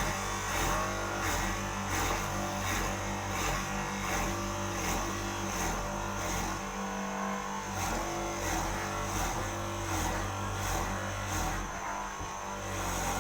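A mortising machine for door mortises running, its electric motor humming steadily under a regular, repeating knock.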